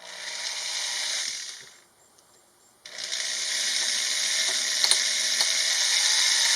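Electric power drill running in two stretches: about two seconds at the start, then again steadily from about three seconds in, with a sharp cut to silence between.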